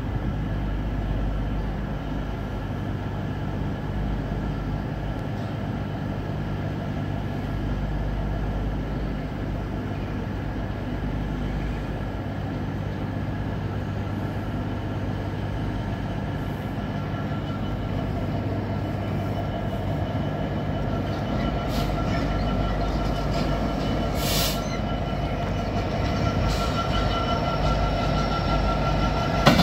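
Diesel rail traction at a station: a steady low diesel engine rumble, growing louder in the second half as a GB Railfreight Class 66 freight locomotive, with its two-stroke V12 engine, approaches and passes. A brief high wheel squeal comes about 24 seconds in.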